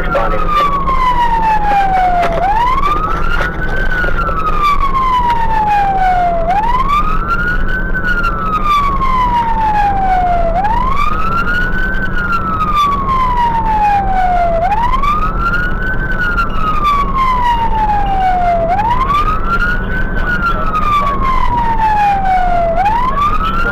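Fire engine siren on a wail: each cycle rises quickly and then falls slowly, repeating about every four seconds. A steady low drone from the moving truck runs underneath.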